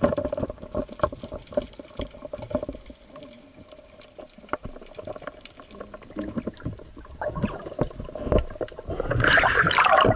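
Underwater sound from a spearfishing dive: a crackle of many small clicks over a faint water hiss. Near the end comes a louder rush of water.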